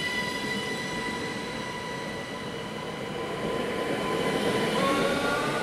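Electric train at a station platform: a steady whine of several tones over a rumble, with one tone starting to rise in pitch about five seconds in.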